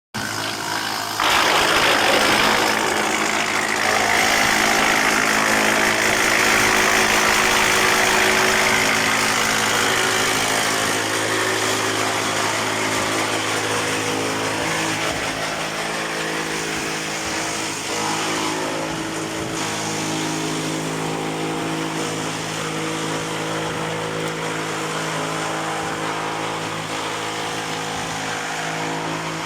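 Industrial wood chipper for sawmill waste running with a steady machine hum. A louder rushing noise comes in about a second in and eases off after about ten seconds.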